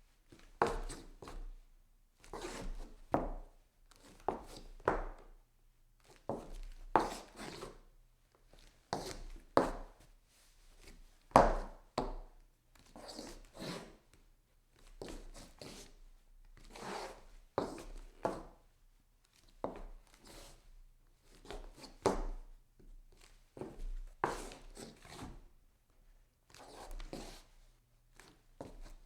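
Foley footstep scuffs on a wooden floor: a foot scuffing and turning around on the boards, over and over. Each is a short brushing scrape, some followed closely by a second, coming about every one to two seconds.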